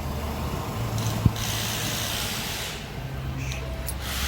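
Hissing in two stretches, one lasting about a second and a half and another starting near the end, over a steady low hum, with one sharp click about a second in.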